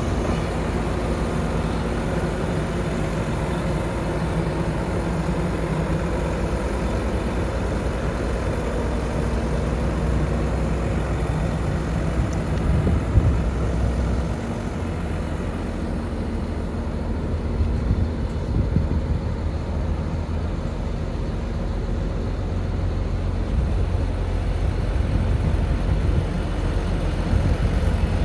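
John Deere 748L grapple skidder's diesel engine idling steadily.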